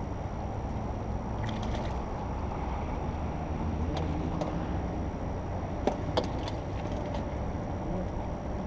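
Small boat's outboard motor running steadily at low speed, as when back-trolling plugs, with a few sharp clicks of gear being handled about six seconds in.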